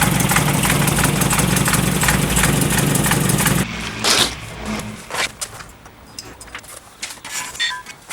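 Volkswagen Golf Mk1's engine idling steadily through its freshly repaired exhaust, then switched off about three and a half seconds in. A few clicks and faint chirps follow.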